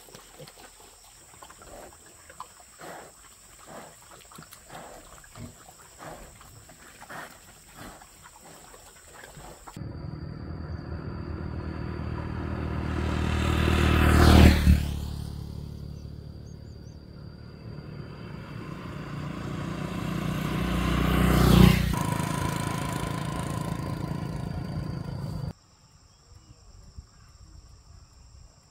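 Two small step-through motorbikes pass close by, one after the other about seven seconds apart. Each engine grows louder as it approaches and drops in pitch as it goes past. Before and after them there are only faint scattered clicks and a steady high insect chirr.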